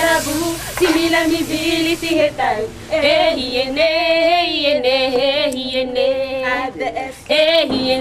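A group of women singing a song, with held notes that waver in pitch and short breaks between phrases.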